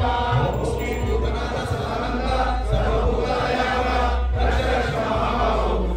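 Group of Ayyappa devotees chanting together in chorus, with many voices blended into one continuous chant.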